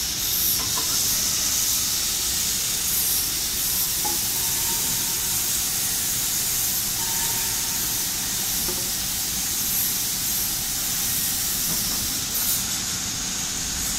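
Double-sided wood planer running without a board in it, giving a steady loud hiss.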